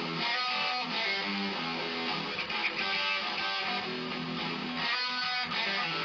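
Electric guitar playing a blues rock intro riff, a run of picked notes and strummed chords.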